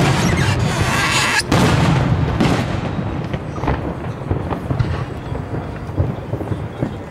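Aerial firework shells bursting: a dense stretch of bangs and crackle in the first second and a half, then single sharp reports about once a second.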